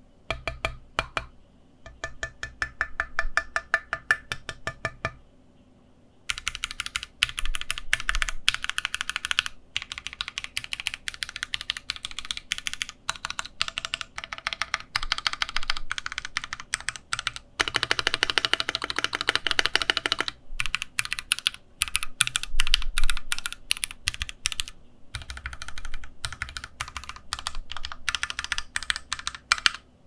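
Fast typing on a Keychron Q3 mechanical keyboard with Gateron G Pro Brown tactile switches, a rapid run of keystroke clacks. There is a short pause about five seconds in, and a few brief breaks after it. The keystrokes sound tight and solid, leaning mid-to-high in pitch.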